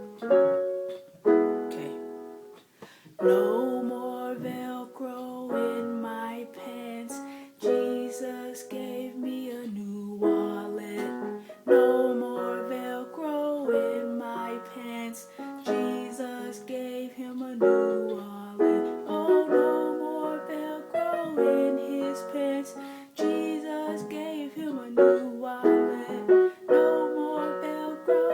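Ukulele strumming chords in a steady rhythm, the chords changing about every two seconds: an instrumental passage of a song.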